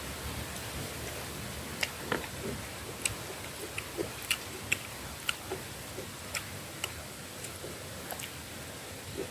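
Close-up eating sounds: irregular sharp clicks and smacks of mouth and food, roughly one a second, over a steady hiss.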